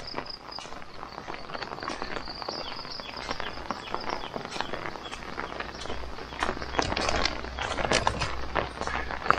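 Footsteps on waterlogged grass, a dense run of irregular soft steps and clicks. A high steady tone sounds in the first two seconds, then fades.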